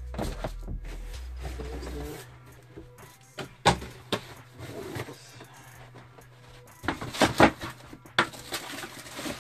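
Shoes and shoe boxes being handled and moved about: rustling with scattered sharp knocks, the loudest about three and a half seconds in and a quick cluster about seven seconds in.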